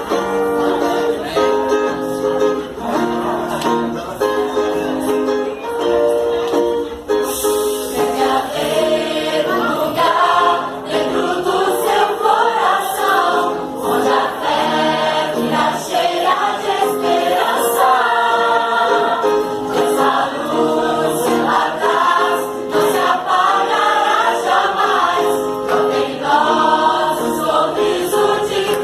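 A choir singing, with long held chords for the first several seconds and then a moving melody.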